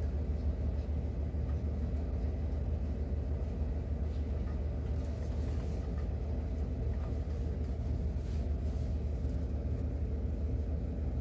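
Steady low mechanical hum of machinery running in a mobile grooming van, with a few faint short hisses now and then.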